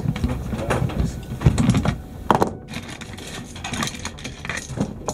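Metal parts of an M240 machine gun clicking and clattering as it is stripped by hand on a tabletop. Irregular small clicks run throughout, with a couple of louder knocks as parts are set down, about one and a half and two and a half seconds in.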